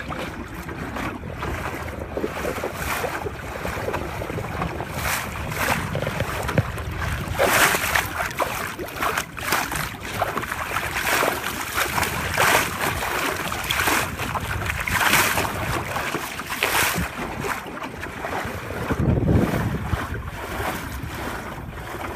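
Water rushing and splashing along the hull of a 12-foot wooden Whitehall sailing skiff under way, coming in repeated louder surges every second or two, with wind buffeting the microphone.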